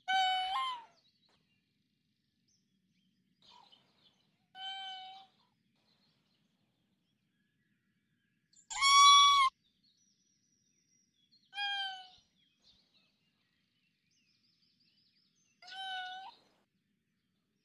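Raccoon dog (tanuki) giving five short, high-pitched calls a few seconds apart. The middle call is the loudest and highest.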